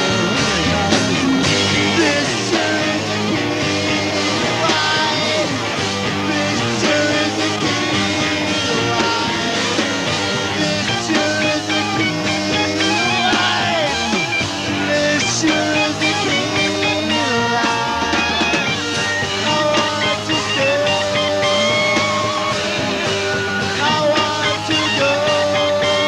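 A rock band playing live, with electric guitar over bass and drums, a long instrumental stretch with sustained guitar notes.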